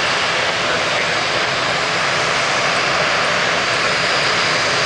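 Jet engines of a McDonnell Douglas MD-11 trijet climbing out after takeoff: a steady, loud, unbroken jet noise.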